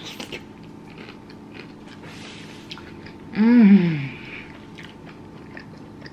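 Chewing crunchy pork-rind-coated chicken, with small crisp crunches all through. About three and a half seconds in comes one loud closed-mouth "mmm" of enjoyment that rises and then falls in pitch.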